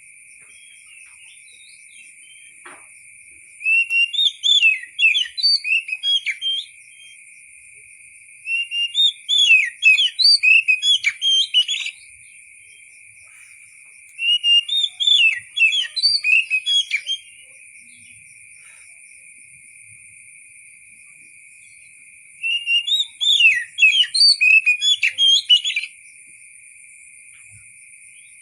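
Oriental magpie-robin singing in four bursts of quick, varied whistled phrases, each a few seconds long with pauses between. A steady high-pitched drone runs underneath.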